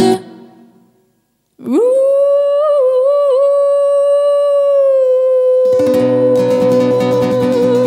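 After a brief silence, a woman's voice holds one long wordless note, with a small waver early in it. About two seconds before the end, acoustic guitar strumming comes in quickly under the held note.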